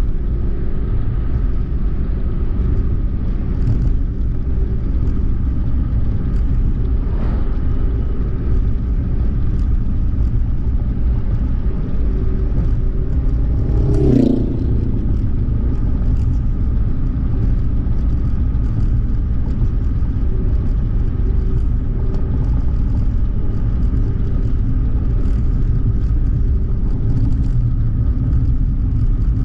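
Suzuki Hustler driving at a steady pace, its engine and tyres making a continuous low rumble. There is a short, louder thump about halfway through.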